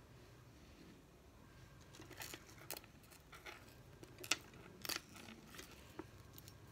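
Faint handling sounds of ribbon earrings being picked up: soft rustles of the sheer ribbon and a few small clicks of the pearl beads and metal hooks, the sharpest about four seconds in.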